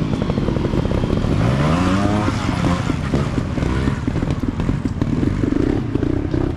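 Trials motorcycle engine running and being revved, with a sharp rise in revs about a second and a half in.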